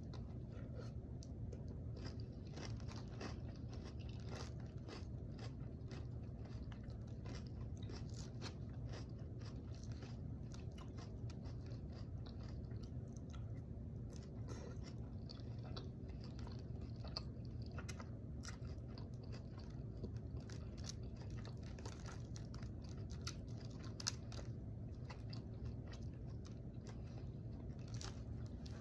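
A person chewing and crunching food close to the microphone, many small wet clicks and crunches one after another, over a steady low hum.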